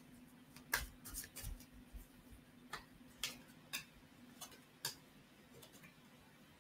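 Deck of tarot cards being shuffled by hand: a string of about ten light, irregular clicks, stopping about five seconds in.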